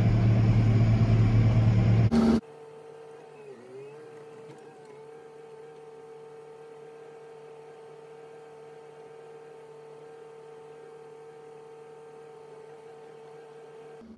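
Tractor engine drone heard inside the cab, with a strong low hum, for about two seconds. It then cuts abruptly to a faint steady engine hum with one held tone, which dips briefly in pitch about a second later.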